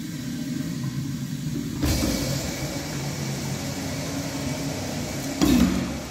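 Commercial urinal flushing through a chrome manual flushometer valve: water rushing steadily into the bowl, surging louder about two seconds in and again briefly near the end before it starts to fade.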